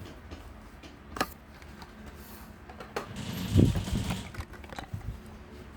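Hot Wheels blister-card packages being handled: plastic blisters and card backs clicking, tapping and rustling, with a louder rustle and a few knocks about three to four seconds in.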